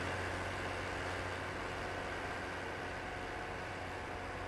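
Iseki farm tractor's engine running steadily with a constant low hum while its front loader pushes snow.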